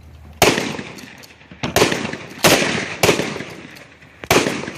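Five gunshots fired singly at irregular intervals, each followed by a long echoing tail.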